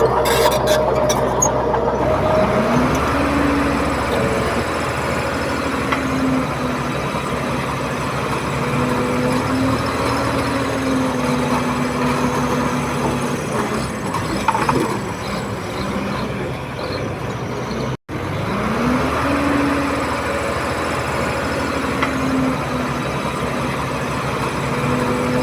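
Komatsu D31P bulldozer's diesel engine working, revving up twice and holding a higher steady note between, as the dozer pushes soil.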